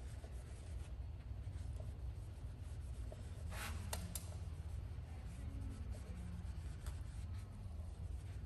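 A cloth or applicator rubbing over the face of an alloy wheel as ceramic coating is worked on or wiped off. There are a couple of light clicks about 3.5 to 4 seconds in, over a steady low hum.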